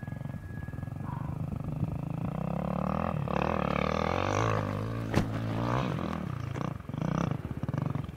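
Enduro dirt-bike engine revving hard under load on a steep climb, its pitch rising and falling with the throttle. A single sharp crack comes about five seconds in.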